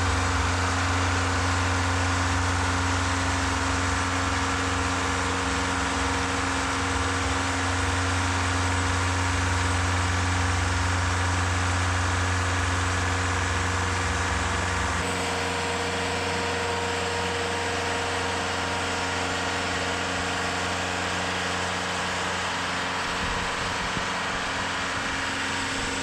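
TimberKing 2520 portable bandsaw mill running steadily under load while its band blade cuts through a hardwood log. The deep low hum thins out about fifteen seconds in.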